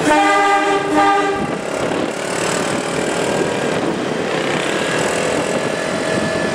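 Diesel-electric locomotive horn, a CC201, sounding two short blasts back to back in the first second and a half, followed by a steady din of road traffic and moving vehicles.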